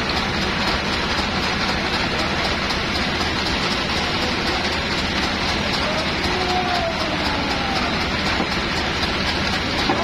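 Band sawmill machinery running with a steady, dense mechanical din throughout. A voice calls briefly about six to seven seconds in.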